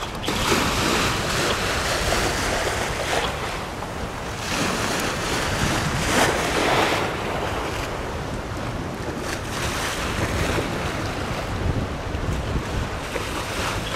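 Wind buffeting the microphone in gusts that swell and fade every few seconds, over the wash of choppy river water.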